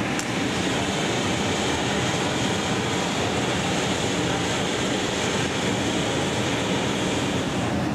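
Handheld gas torches burning with a steady rushing noise as their flames heat a glass piece on a blowpipe.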